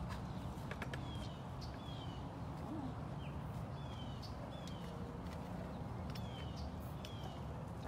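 A bird repeating a short, high chirp that slides downward, about once a second, over a steady low hum, with a few faint clicks about a second in.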